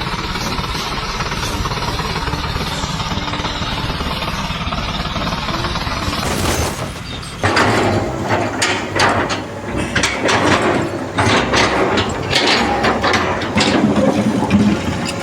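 A heavy engine running steadily. About seven seconds in it gives way to irregular clanking and knocking, like machinery or metal being worked.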